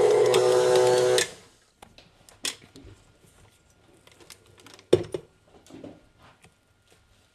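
Electric stand mixer running steadily as it mixes bread dough, switching off about a second in. After that, faint clicks and rustles of hands working sticky dough in the steel bowl, with one sharp knock about five seconds in.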